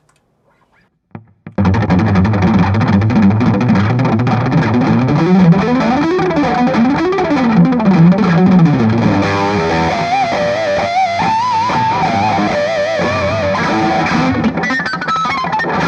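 Electric guitar, a Gibson Les Paul Special Double Cut, played through a distorted high-gain amp. After a couple of soft clicks, a lead line comes in about a second and a half in, with string bends and wide vibrato on the held notes.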